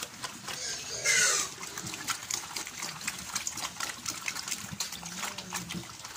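Pigs eating wet feed: a steady run of wet smacking and slurping chomps, with one short, loud squeal falling in pitch about a second in and faint grunts near the end.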